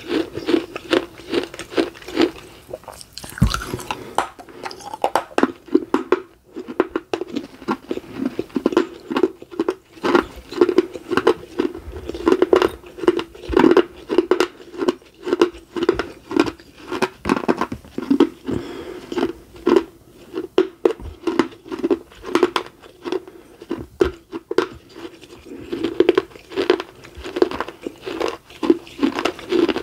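Close-up chewing of baked edible clay: dense, crackling crunches as the clay pieces are bitten and ground between the teeth, with one sharper snap about three and a half seconds in.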